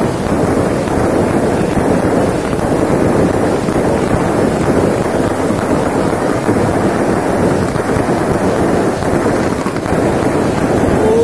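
Fireworks going off, heard as a dense, steady mass of noise with no single bang standing out.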